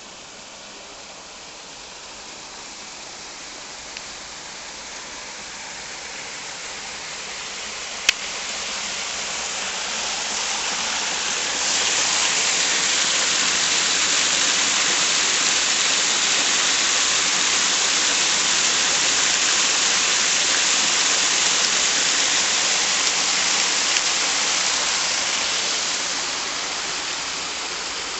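Water pouring over a small spillway into a stone-lined pit: a steady rushing that grows louder over the first dozen seconds, holds, then fades near the end. A single sharp click about eight seconds in.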